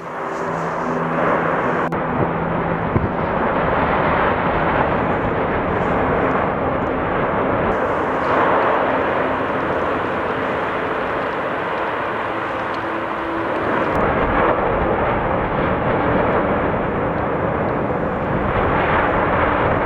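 Volcanic eruption venting: a loud, steady rushing noise with a deep rumble underneath, swelling slightly about fourteen seconds in.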